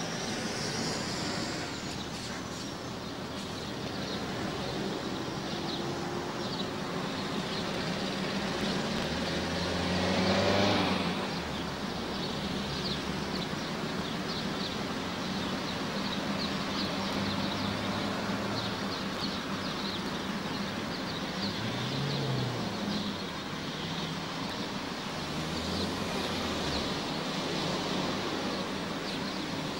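Road traffic at a motorway toll plaza: car engines and tyres as vehicles pull away from the booths. One vehicle passes close, the loudest moment, about ten seconds in.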